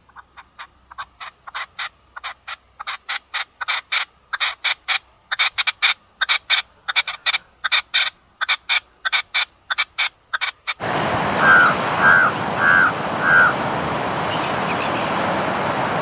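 Red-legged partridge calling: a rhythmic series of harsh chuck notes, about three a second, building in loudness. About eleven seconds in it cuts to a crow cawing four times over a steady rushing background noise.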